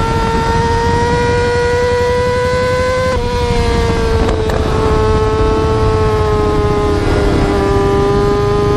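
Yamaha R6 inline-four sportbike engine held at high revs. Its pitch creeps up, drops suddenly about three seconds in, then holds steady. Wind rumble runs underneath.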